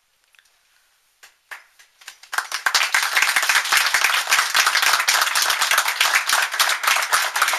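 Near silence broken by a couple of scattered claps, then an audience breaking into steady applause a little over two seconds in.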